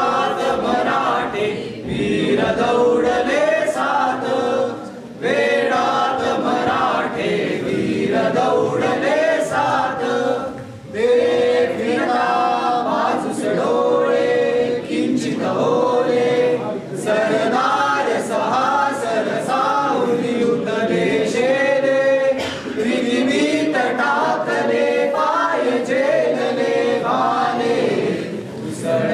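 A small group of young men and women singing a song together, unaccompanied, with short breaks between lines about five and eleven seconds in.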